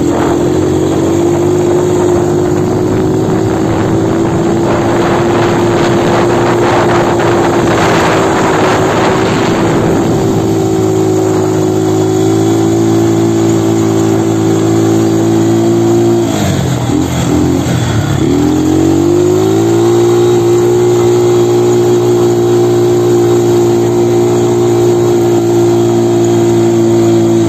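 Quad bike's 200 cc engine running at steady revs while riding. About two-thirds of the way through, the revs drop and waver for a couple of seconds, then climb back to the same steady pitch.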